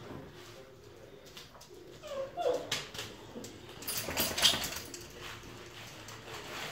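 Bernese mountain dog puppies at play: a short whine about two and a half seconds in, then a noisy scuffling clatter a little past the middle, with light clicks of paws on the tiled floor.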